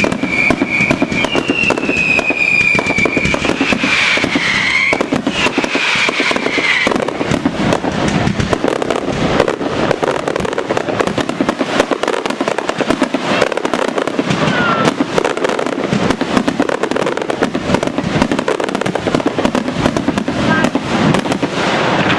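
Fireworks display: several whistling shells with falling whistles over the first five seconds, then a dense, continuous run of crackling and bangs.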